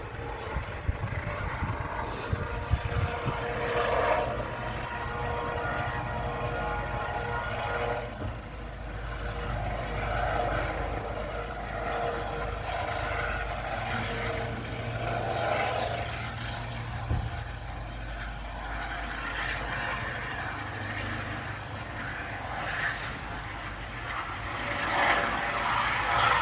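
Helicopter flying over, a steady low drone of its engine and rotor.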